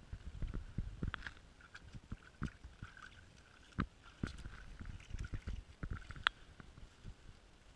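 Black Labrador retriever wading through a shallow puddle, its paws splashing and sloshing in the water in irregular steps.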